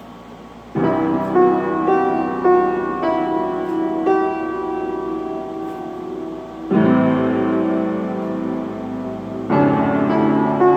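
Slow piano music begins about a second in, a melody of single notes over held chords, with new chords struck at about seven and nine and a half seconds.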